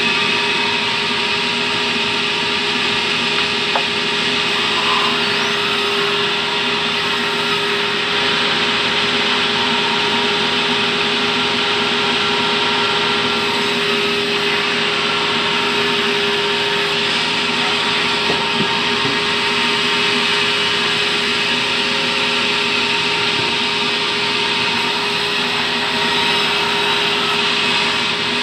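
Sawmill band saw running steadily and cutting through a log of fibrous terap wood: a constant machine whine with several steady tones over the rasp of the blade in the wood.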